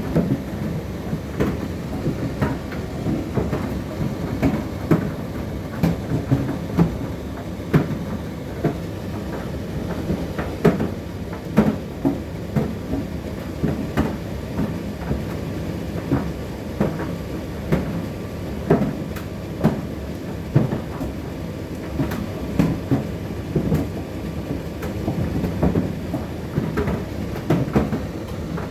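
Indesit IDC8T3B condenser tumble dryer running mid-cycle: a steady drum-and-motor rumble with irregular knocks and clicks as the load tumbles in the turning drum.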